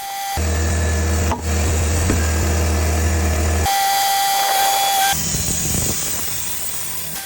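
Bandsaw sawmill cutting a red cedar log: steady machine hum under the hiss of the blade going through the wood. The sound changes abruptly a few times as one stretch of sawing cuts to another.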